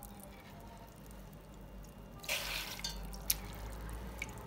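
Wet soaked lentils tipped from a metal ladle into a steel pot of chopped vegetables: a short wet patter with dripping about two seconds in, then a sharp clink.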